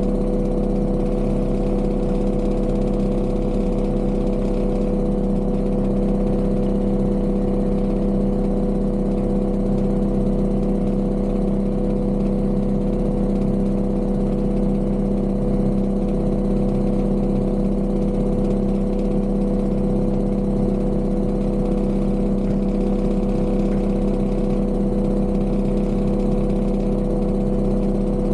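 Heavy construction machine's engine running steadily at an even, unchanging pitch.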